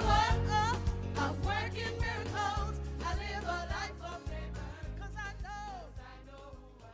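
Choir singing with instrumental accompaniment, the voices wavering with vibrato over steady bass notes, the whole fading out gradually.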